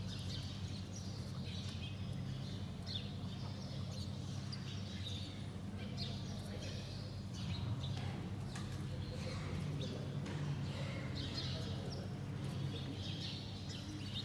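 Birds chirping, many short calls scattered throughout, over a steady low hum.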